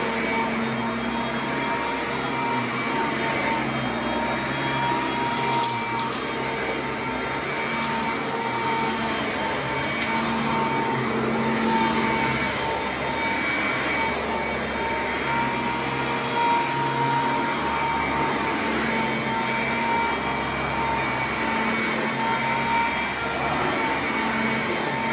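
Sanitaire commercial upright vacuum cleaner running on carpet: a steady motor whine over a rush of air, with a lower hum that swells and fades every few seconds. A few sharp clicks come about a quarter of the way in.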